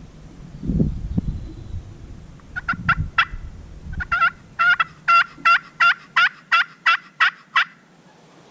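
Turkey yelping: a long run of short, evenly spaced yelps, about three a second, starting a few notes at a time and then running steadily for several seconds. Low thumps come before it.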